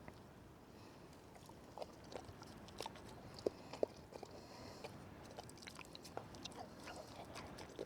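Faint, scattered chewing and crunching clicks: a dog eating a piece of pork pie.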